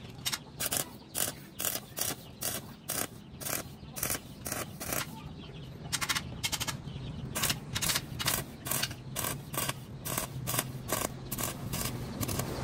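Stick (arc) welding in short bursts: the arc crackles for a fraction of a second at a time, about two to three times a second with uneven pauses, as weld is built up inside the bore of a metal housing. A low steady hum runs underneath.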